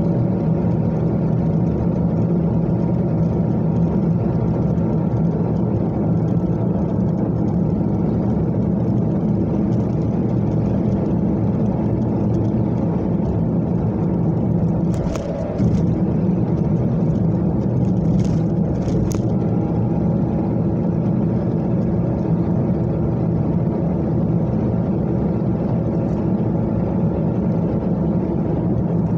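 Steady road and engine noise of a car cruising on an expressway, heard from inside the cabin, with a few short clicks a little past halfway.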